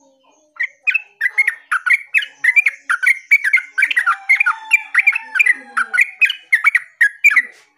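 Yellow-vented bulbul (terucuk) singing vigorously: a long, rapid series of short chirping notes, several a second, starting about half a second in and running nearly seven seconds.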